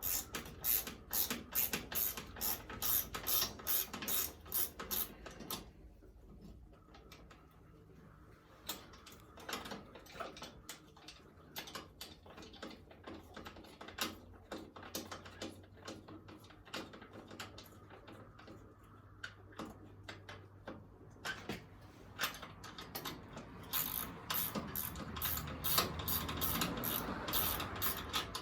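Socket ratchet wrench clicking in quick runs as bolts are backed out, with a sparser patch of clicks through the middle.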